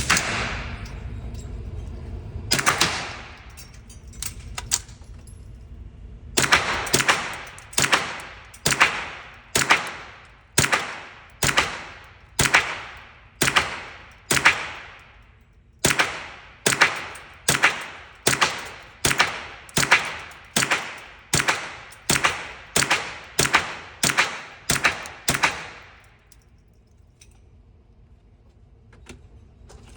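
Suppressed .22 rimfire shots, each with a short fading ring: two single shots, then a steady string at a little over one shot a second with a brief pause midway.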